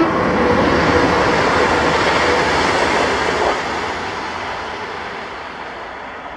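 A train running past, a broad rumble and hiss that is loudest for the first few seconds and then fades steadily as it moves away.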